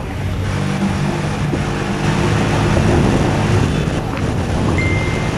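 Motorcycle engine running steadily while riding, with wind noise over the microphone.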